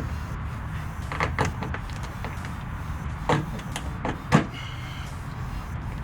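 Several short sharp knocks and clicks over a steady low rumble, the loudest about four and a half seconds in.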